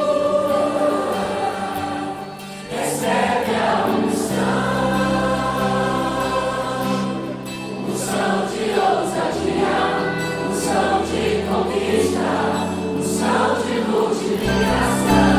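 Gospel worship music: singing over instrumental backing with sustained bass notes, briefly dipping in loudness about two and a half seconds in.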